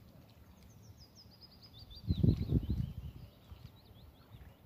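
A small songbird sings a quick run of high chirps that falls steadily in pitch over about three seconds. About two seconds in, a gust of wind buffets the microphone with a loud low rumble.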